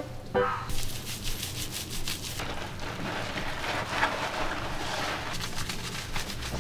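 Water spraying steadily from a handheld shower head, as in rinsing a cat in a bath, with a fluttering hiss. It starts just under a second in, after a few notes of background music.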